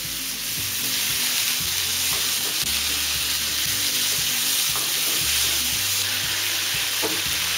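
Chopped green chillies sizzling in hot oil in a nonstick pan with a steady frying hiss, stirred with a wooden spatula, as their moisture cooks off.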